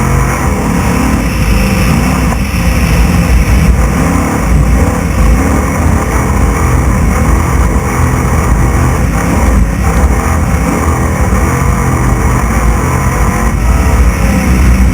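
Class 6100 off-road desert race truck at racing speed, heard from on board: the engine runs hard, its note rising and falling with the throttle, under a loud constant wash of road and wind noise.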